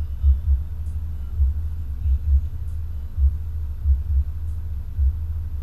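Muffled low thumping inside a car cabin: deep thumps, often in pairs, repeating about once a second over a constant low rumble, with faint high ticks every couple of seconds.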